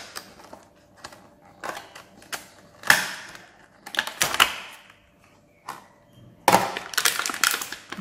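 Clear plastic packaging crinkling and crackling as it is pulled open by hand, in irregular crackles that are densest about two-thirds of the way in.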